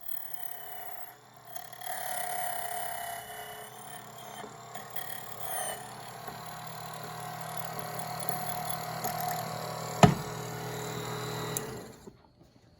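HPC Mini Speedex key duplicating machine running and cutting a key, a steady motor hum under a whining cutter, with a sharp click about ten seconds in. It stops shortly before the end.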